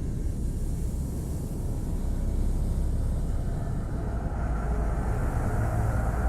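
Police cruiser driving on a dirt road: a steady low rumble of engine and road noise. A higher, steadier tone joins about five seconds in.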